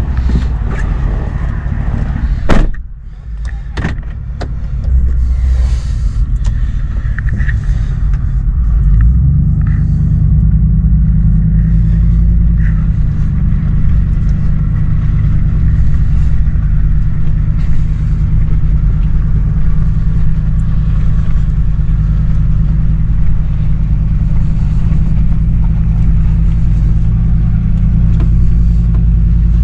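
A truck engine running steadily at low revs, settling into an even hum from about nine seconds in. There is one sharp knock about two and a half seconds in.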